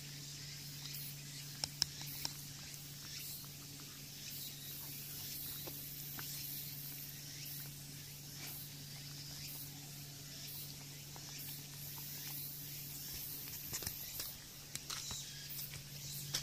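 Kai Ken dog chewing a piece of chicken tenderloin: a few faint wet clicks and smacks about two seconds in and again near the end, over a steady low hum and hiss.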